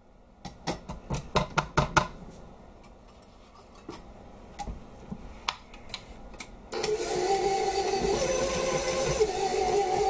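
A rubber spatula taps and scrapes against a stand mixer's steel bowl and flat beater in a quick run of clicks. About two-thirds of the way in, the stand mixer is switched on and runs steadily, beating cookie dough.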